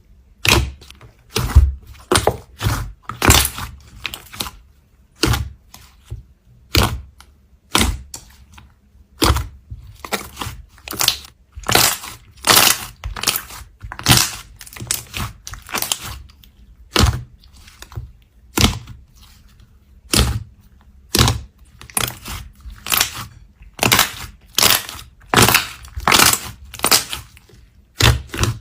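Slime being pressed and squeezed by hand, giving repeated short, sharp pops and crackles at an irregular pace of one or two a second.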